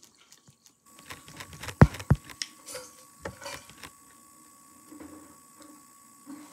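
Plastic fork clicking and scraping against a plate while twirling noodles, with two loud knocks close together about two seconds in, then softer scattered clicks.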